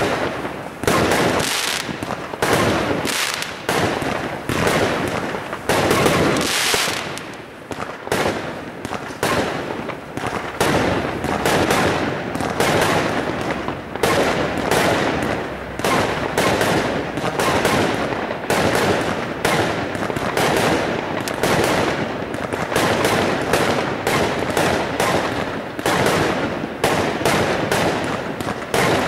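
Aerial fireworks bursting in rapid succession, a dense, unbroken string of bangs several times a second.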